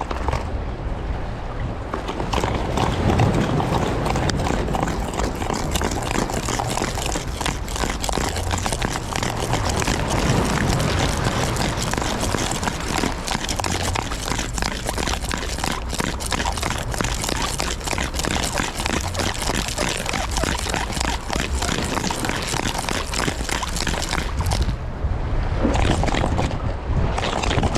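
Water sloshing and splashing, with many small clicks and knocks.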